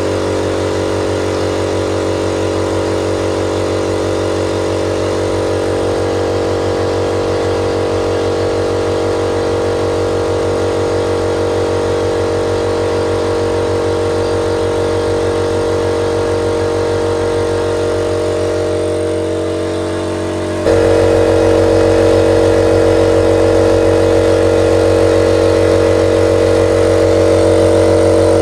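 A new 50-litre air compressor running steadily under load, filling its tank with air. About 20 seconds in, its sound changes suddenly to a louder, slightly different tone.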